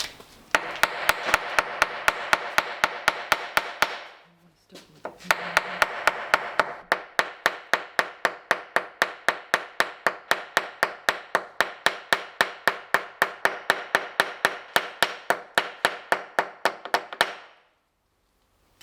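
Hammer rapidly peening over the ends of copper bolts that fasten bronze rudder fittings, an even run of metal-on-metal strikes about four to five a second with a ringing note between them. The strikes pause briefly about 4 s in, resume, and stop suddenly near the end.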